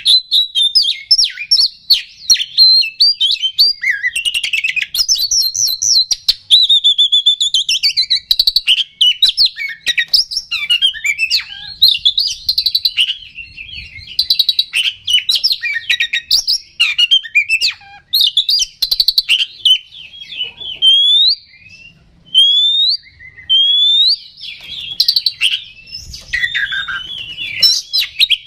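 Oriental magpie-robin singing a fast, varied song of whistles and chattering notes, loud and nearly unbroken. From about 20 seconds in it turns to single short rising whistles with short pauses between them.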